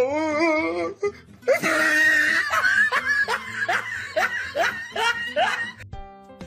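A person laughing hard in a long run of quick repeated bursts. Music begins near the end.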